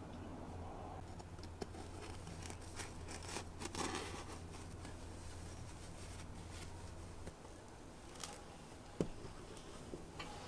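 Gloved hands handling and wiping a decorative kabuto helmet: soft rustling of cloth and gloves with light clicks of its metal fittings, the sharpest click about nine seconds in. A low hum underneath stops about seven seconds in.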